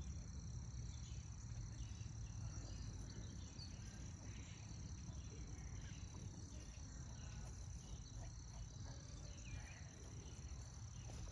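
Steady high-pitched chorus of insects, two even tones held throughout, over a low background rumble.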